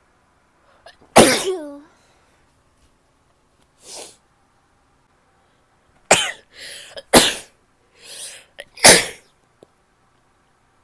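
A woman sneezing: one loud sneeze about a second in with a short falling voiced tail, then after a breath three more sneezes in quick succession, with quick inhales between them.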